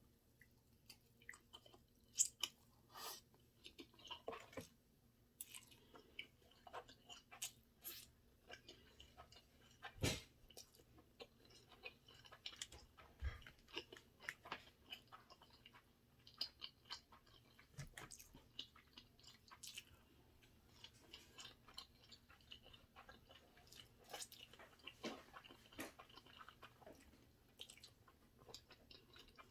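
Close-miked chewing of sushi: irregular wet mouth clicks and smacks with small crunches, one louder smack about ten seconds in.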